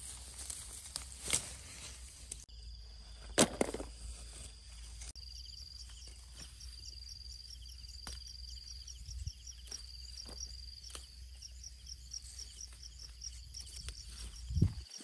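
Chili plants being picked by hand: leaves rustling and scattered stem snaps, with one sharp snap a few seconds in. A high insect call with rapid pulsing runs through the field ambience.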